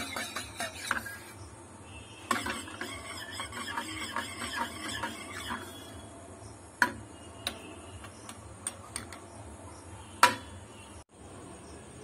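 A metal teaspoon stirring tea in cups, clinking quickly and continuously against the sides for a few seconds. Then come a handful of separate clinks and taps, the loudest near the end.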